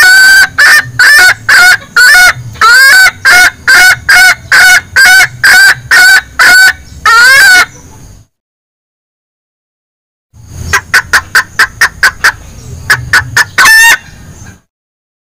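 Jungle fowl hen calling the male, clear and loud: a run of clucking calls about two a second, then, after an abrupt gap of about two seconds, a quick burst of short notes and a few more calls.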